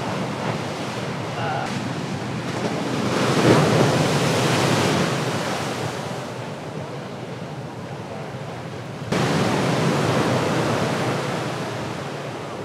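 Ocean surf breaking: a rush of whitewater that builds about three seconds in and ebbs, then a second surge that starts abruptly about nine seconds in and slowly fades.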